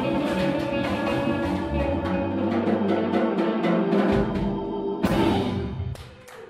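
Live band ending a song: full band playing with a run of drum hits, then a final hit of the whole band about five seconds in that rings out and fades.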